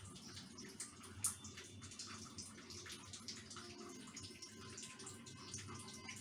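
Oiled hands squeezing and rolling soft rice-flour dough in a bowl of flour: faint, irregular wet squishing with many small clicks, and one sharper tap about a second in.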